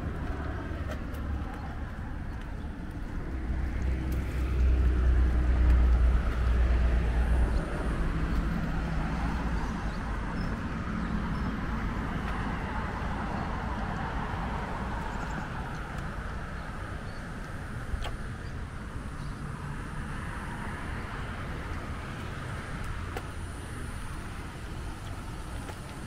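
Road traffic on a street: a steady hiss of cars going by, with a louder vehicle passing with a deep rumble about four to seven seconds in.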